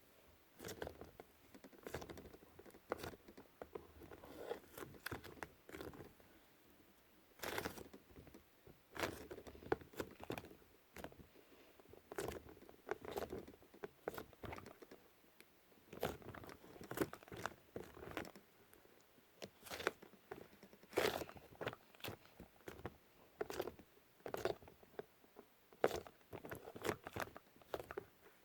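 Lightweight air-dry modelling clay (iClay) squeezed and kneaded by hand close to the microphone: an irregular run of soft squishes and crackles with no steady rhythm.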